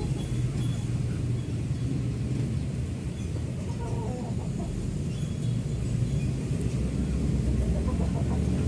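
Outdoor ambience: a steady low rumble, with a few faint, short bird calls over it.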